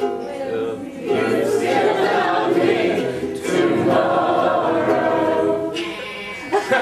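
Several voices singing together, a sustained sing-along swell lasting about five seconds that stops near the end.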